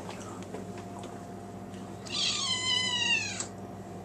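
Kitten meowing to beg for food: one long call about two seconds in that falls in pitch, after a quieter stretch with a few faint clicks.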